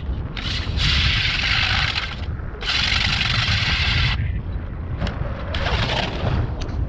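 Hand ice auger boring into lake ice, its blades scraping and grinding in three long bursts as it is turned. Wind rumbles on the microphone throughout.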